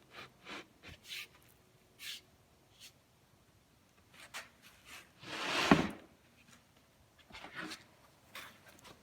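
Light taps and knocks of cabinet panels being handled and set into position, with one louder, longer scrape or bump about five and a half seconds in.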